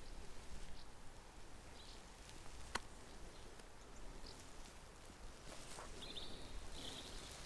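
Faint outdoor background with a few short, high bird chirps near the end and a single sharp click near the middle.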